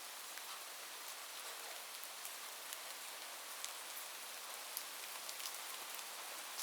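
Light, gentle rain falling steadily: an even soft hiss with many small scattered drip ticks.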